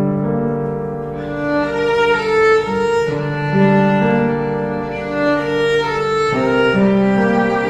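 Background music: slow bowed strings, violin and cello, playing sustained notes.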